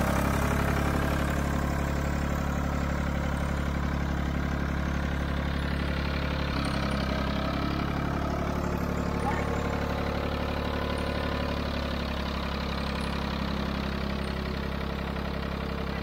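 Old Ford backhoe engine running steadily, freshly revived after sitting unrun for years.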